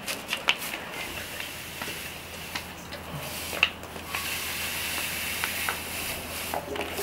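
Sugar poured from a paper bag into a steel measuring cup: a soft, steady hiss through the second half, after a few light clicks.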